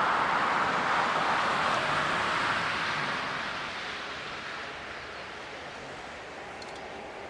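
Jet airliner's engines, a broad rushing noise that fades away from about three seconds in as the aircraft moves off.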